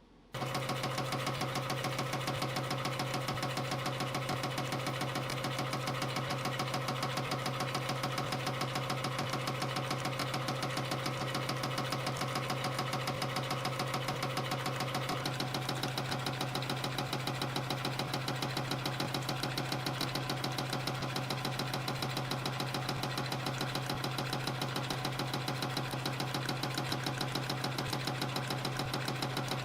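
CNC compression-spring coiling machine running, feeding and coiling 0.6 mm wire into small springs at about 420 a minute. It starts suddenly about half a second in and then keeps a fast, even, rapid-fire rhythm over a steady low hum.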